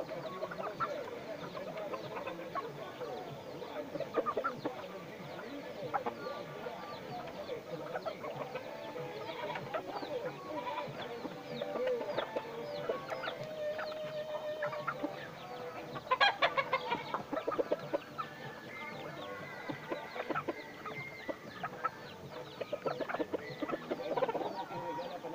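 Chickens clucking as they peck at feed, with many short calls throughout and a louder cluster of calls about sixteen seconds in.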